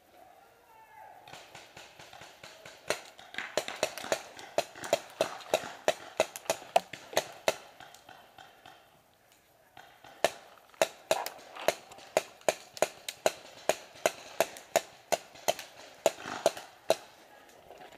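Paintball marker firing in two long strings of rapid shots, about three a second, each a sharp pop.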